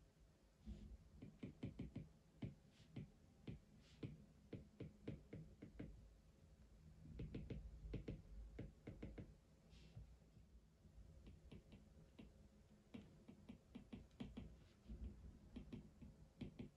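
Faint, irregular taps and knocks of small objects being handled on a desk, some in quick clusters.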